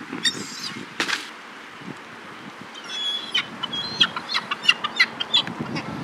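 Gulls calling: two calls in the first second, then a quick run of short, sharp calls from about three seconds in, as the flock feeds on scattered food.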